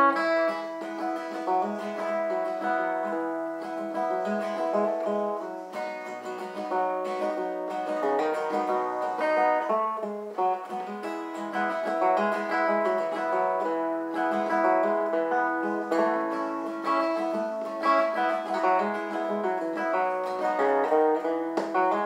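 Acoustic guitar played solo with a capo: an instrumental break of picked notes over ringing chords.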